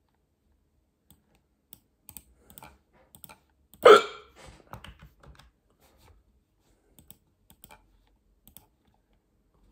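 A person hiccups once, loudly, about four seconds in, against faint scattered clicking.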